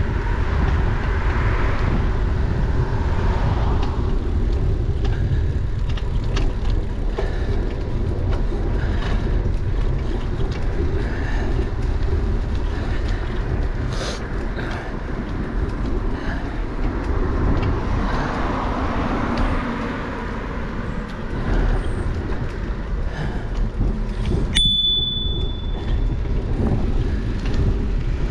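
Bicycle ride with steady wind rumble on the microphone and road noise from passing cars, which swells twice as cars go by. A single bicycle bell ding, a sharp strike with a short ringing tone, comes near the end.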